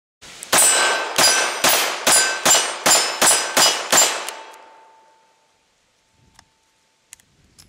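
Nine rapid double-action shots from a Taurus Model 94 .22 Long Rifle revolver, about two a second, each with a ringing clang of steel targets being hit. The ringing fades over about a second after the last shot, and a few faint clicks follow as the cylinder is opened.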